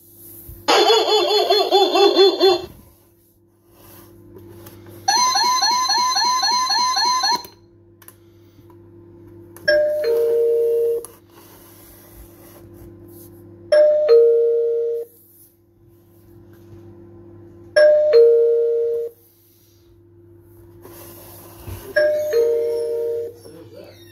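Electronic barking-dog motion-sensor alarm playing sounds through its speaker. First comes a short burst of recorded dog barking, then a fast warbling electronic tone. After that a two-note falling ding-dong door chime sounds four times, about every four seconds.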